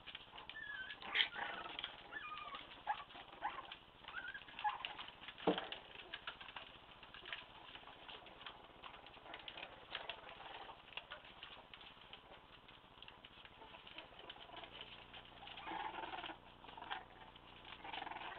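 Young Staffordshire Bull Terrier puppies playing: short high squeaks and whimpers through the first five seconds or so, with scratching and pattering of claws and scuffling bodies on the floor mat throughout.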